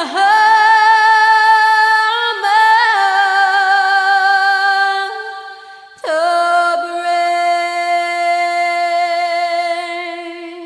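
A high solo voice singing unaccompanied, holding two long notes with vibrato, the second one slowly fading out.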